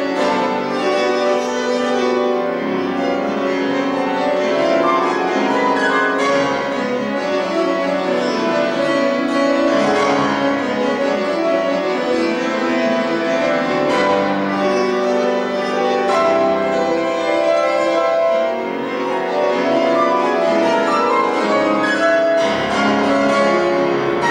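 Solo grand piano playing classical music: a dense, continuous stream of notes.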